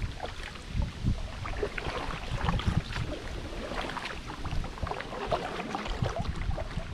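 Double-bladed kayak paddle dipping into the water in alternating strokes, with splashing and water dripping off the blades. Uneven gusts of wind rumble on the microphone.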